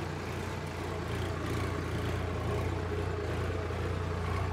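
Farm tractor's diesel engine running steadily at constant revs.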